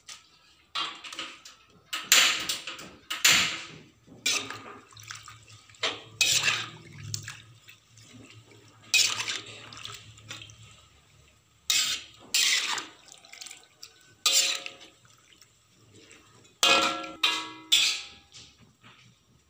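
Metal spatula scraping and clanking against a metal wok while fern shoots, tofu and tempeh are turned over in coconut milk, with wet sloshing. The strikes are irregular, over a dozen, and a few near the end ring briefly. The mix is being stirred a little at a time so the coconut milk does not curdle.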